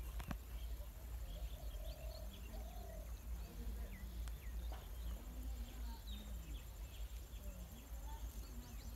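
Small birds chirping with many short calls over a steady low rumble of outdoor background noise.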